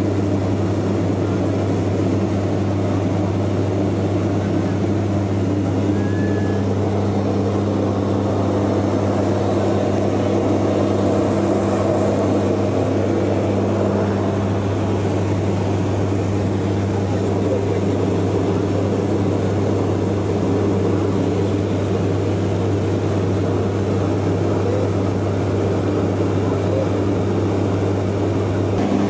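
Single-engine propeller aircraft's engine and propeller running at a steady low drone, heard from inside the cabin.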